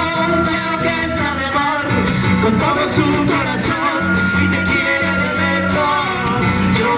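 A small live band playing a traditional Oaxacan song: acoustic and electric guitars over bass and drums, with one long held melody note in the middle.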